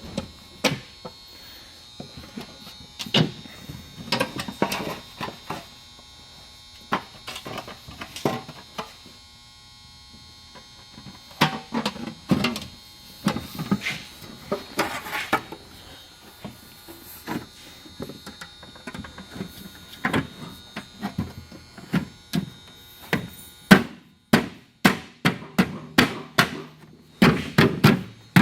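Workshop handling noises: scattered knocks and clicks of wood and tools over a steady electrical hum. Near the end comes a run of sharp knocks, about two a second.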